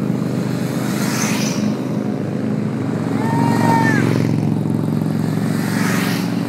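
Motorcycles and a trike riding past one after another at road speed, engines running, with a rush of sound as one passes about a second in and another near the end. A short horn sounds for under a second about three seconds in, its pitch dropping as it stops.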